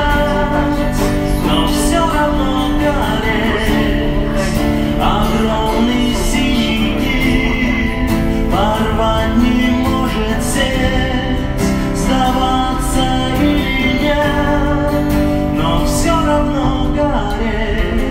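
A man singing live to guitar accompaniment, his voice sliding and wavering in long sung lines over steady chords.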